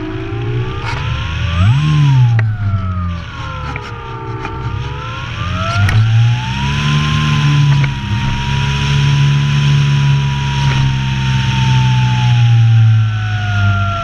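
Electric motor and propeller of an Apprentice S radio-controlled trainer plane, heard from a camera on board, running with its pitch rising and falling as the throttle changes. It surges sharply about two seconds in, then holds a higher, steady pitch from about six seconds before easing off near the end, over a hiss of rushing air.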